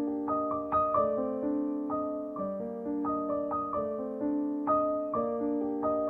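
Background piano music: a gentle melody of single notes over chords, each note struck and then fading, a few new notes every second.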